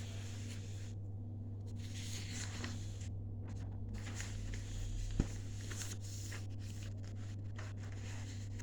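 Faint rustling and scraping handling noises over a steady low electrical hum, with one sharp click about five seconds in.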